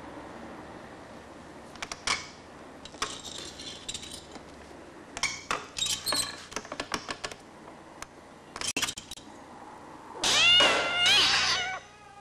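Scattered light clicks and taps, then a loud, drawn-out cat meow near the end.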